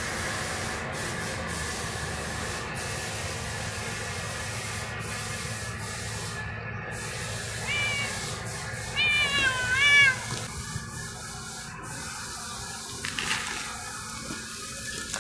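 Domestic cat meowing about three times in quick succession just past the middle: short, wavering meows over a steady hiss.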